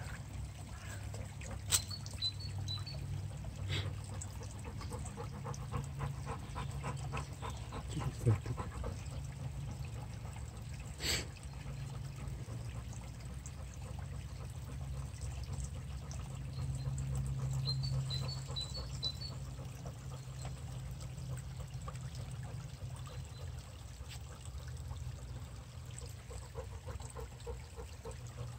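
Shallow brook trickling, with water sloshing as a Labrador wades in it, and a few sharp clicks.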